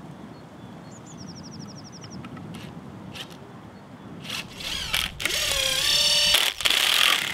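Panasonic cordless drill-driver driving a screw into a wooden nest box, its motor whining in three short runs from about four seconds in, the pitch sliding up and down as the screw bites.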